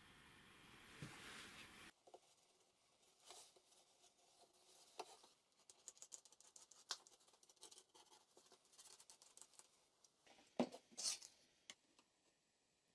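Near silence with faint handling noises: scattered light clicks and rustles as an unpowered plunge router and its cutter are handled and set, with two sharper clicks near the end. A faint hiss cuts off abruptly about two seconds in.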